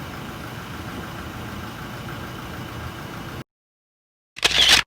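Car engine idling steadily, cut off abruptly about three and a half seconds in. Near the end comes a short, loud burst of sound.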